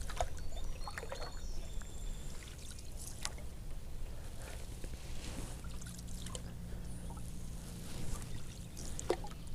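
Small water sounds around a canoe, trickling and light splashing, with scattered faint clicks and knocks over a steady low rumble.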